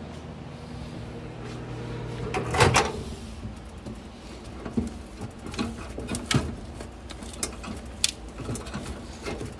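A steady low hum cuts off about two and a half seconds in, followed at once by a loud clunk of a microwave door opening. Then come scattered light clicks and knocks as a plastic food tray is handled on the microwave's glass turntable.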